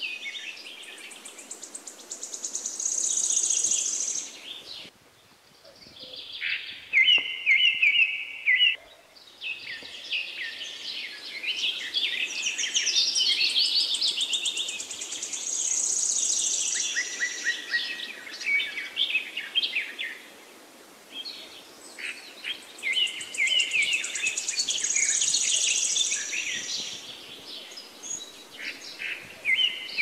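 Several small songbirds chirping and singing in high, rapid twitters and trills that overlap, with a sudden break about five seconds in.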